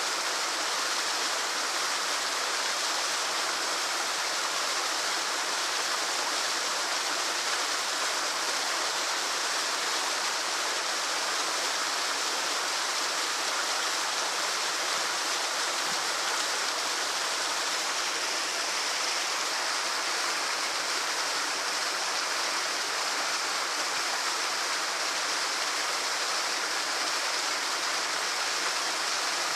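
Waterfall pouring steadily: an even, unbroken rush of falling water, mostly hiss and splash with little deep rumble.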